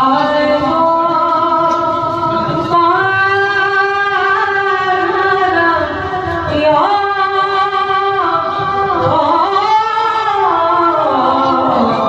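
A solo voice singing a bhaona devotional song, holding long drawn-out notes and sliding up into new notes between them.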